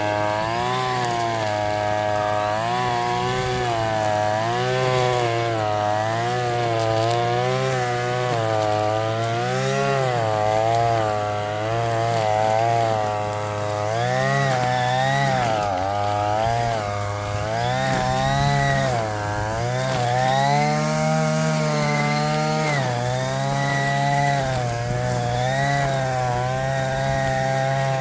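Hyper Tough gas string trimmer running, its engine speed rising and falling every second or two as it is throttled and loaded, with a couple of deeper drops in revs midway.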